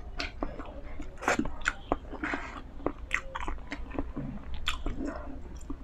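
Close-miked chewing of a mouthful of thick egg noodles: a stream of short wet mouth clicks and smacks.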